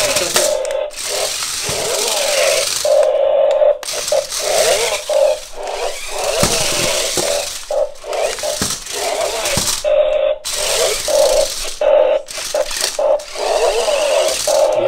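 Toy RC stunt car's electric drive motors whining in many short on-off spurts as it is driven, with the noise of its wheels running over the hard floor and rug.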